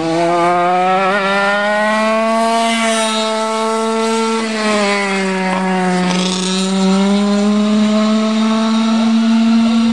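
Go-kart engine running hard and continuously, its pitch rising, dipping about five to six seconds in, then rising again as the throttle and speed change.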